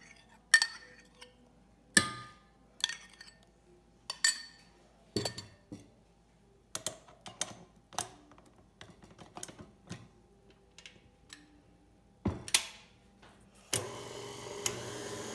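A spoon clinking and tapping against a stainless-steel mixing bowl, a string of sharp separate knocks as a creamy coconut mixture is scraped in. About fourteen seconds in, a KitchenAid Artisan stand mixer starts up and runs steadily, beating the ice-cream base.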